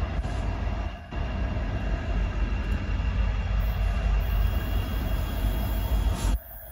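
Union Pacific freight train with several diesel-electric locomotives in the lead approaching. Its engines and wheels make a steady heavy low rumble, which dips briefly about a second in and again near the end.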